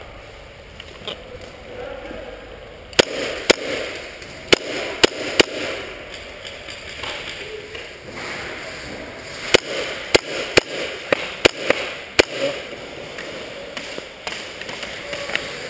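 KSC MP7 gas-blowback airsoft gun firing single shots, each a sharp crack, in two strings: five shots starting about three seconds in and six more starting about ten seconds in, roughly two a second.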